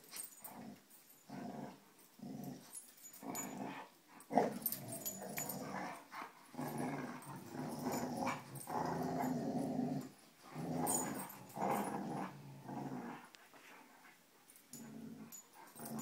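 Dogs growling in play while tugging on a rope toy. The growls come in short bouts at first, run almost unbroken through the middle, and thin out near the end.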